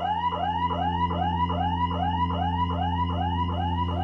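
A siren warbling rapidly up and down, about four rises and falls a second, over a steady low hum.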